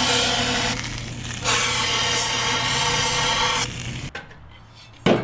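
A power tool cutting the lip off an old diesel fuel filler funnel: two steady cutting runs of about two seconds each with a short break between, stopping about three and a half seconds in. A single sharp knock follows near the end.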